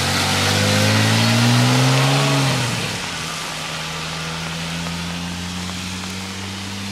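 Porsche 997 flat-six engine accelerating with its pitch rising, then dropping sharply about two and a half seconds in, after which it runs quieter at a steady, slowly climbing pitch, over a constant hiss.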